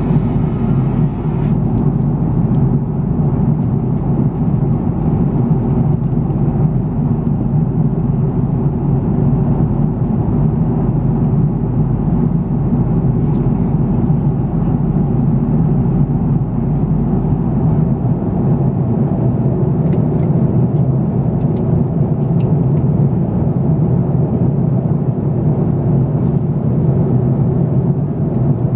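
Steady in-flight cabin noise of an Airbus A330-343 heard from inside the cabin: the even, low drone of its Rolls-Royce Trent 700 engines mixed with the rush of air past the fuselage.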